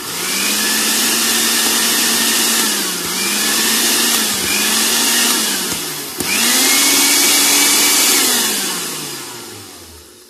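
Juicer-blender base's motor running without a jar on a test run after repair, switched between speed buttons: a steady whine that dips and picks up again a few times, cuts and restarts about six seconds in, then spins down with falling pitch near the end.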